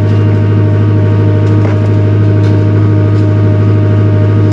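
Takeuchi TL240 skid steer's diesel engine running at a constant speed, a steady loud drone with no change in pitch.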